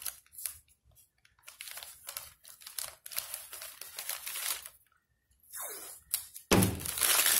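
Green masking tape peeled off its roll in short, irregular pulls, then one longer, louder pull near the end.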